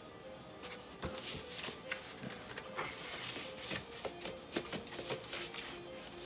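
Vinyl record jackets and sleeves rustling, sliding and tapping as records are handled and swapped, in irregular light scrapes and clicks.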